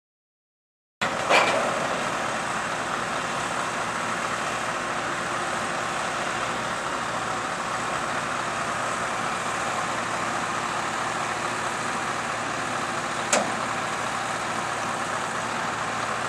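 About a second of silence, then a heavy lorry running steadily with road noise. There is a sharp knock just after the sound comes in and another sharp click near the end.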